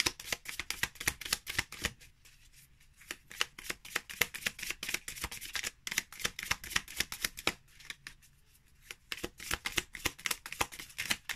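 Matte-finish oracle cards being shuffled hand over hand: a fast run of short card slaps and flicks that pauses briefly twice.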